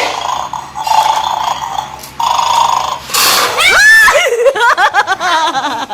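Battery-powered toy dog from the Bad Dog board game snoring, three drawn-out snores about a second each, the sign that the dog is still asleep. From about three seconds in, high, wavering cries take over.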